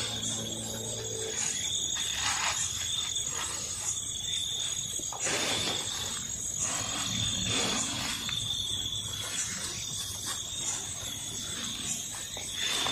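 Night insects trilling steadily at a high pitch, with several brief rustles of grass and clothing as a person crouches and moves in tall grass, the loudest about five seconds in.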